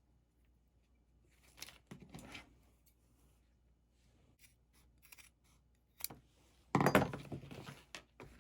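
Hand work on craft materials: scattered clicks, taps and light rustles, with a louder rustling stretch about seven seconds in.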